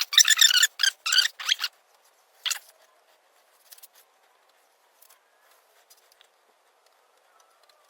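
Rapid rasping strokes of a hand tool cutting into a wooden 4x4, about three a second. They stop a little under two seconds in, and one more stroke comes shortly after. Then there are only faint ticks and scrapes.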